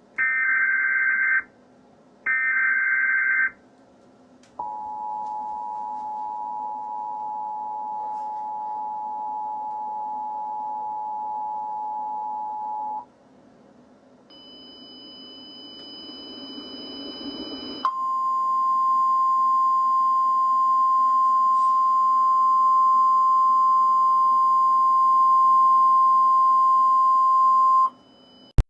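Emergency alert tones for a tornado warning. First come two short buzzy bursts of encoded data tones, then the harsh two-note attention signal held for about eight seconds. After a few seconds of rising hiss, a single steady high warning tone sounds for about ten seconds and cuts off near the end.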